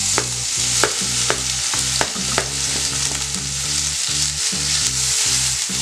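Finely chopped red onion hitting hot ghee and cumin seeds in a frying pan and sizzling steadily. A wooden spatula knocks sharply about six times in the first two and a half seconds as the onion is scraped in.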